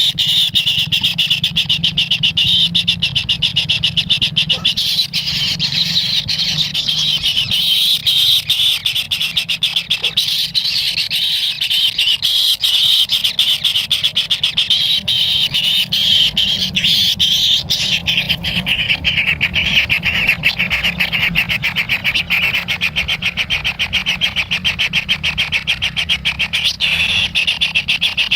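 Kingfisher chicks begging in the nest: a continuous, rapid, high buzzing churr that runs on without a break, over a steady low background hum.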